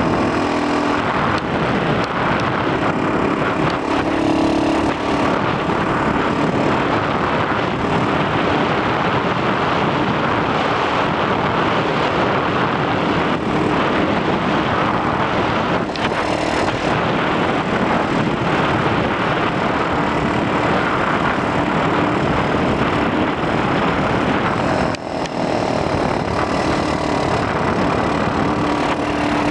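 X18 super pocket bike's small engine running steadily while under way, largely buried under heavy wind noise on the helmet-mounted microphone.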